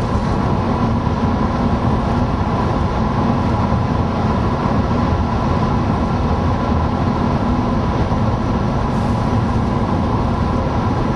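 Steady road and engine noise heard from inside a moving van, a continuous low rumble with no breaks.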